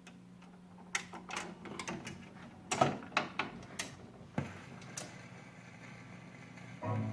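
Sharp clicks and knocks from a 1949 Silvertone console record player being worked, over a steady low hum, then a record starts playing music near the end.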